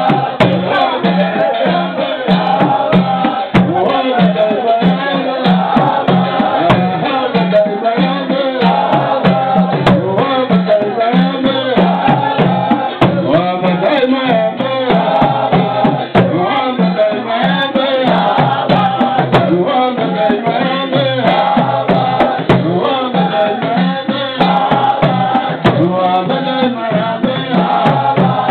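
A group of men chanting a moulidi devotional song together, accompanied by rhythmic frame-drum beats.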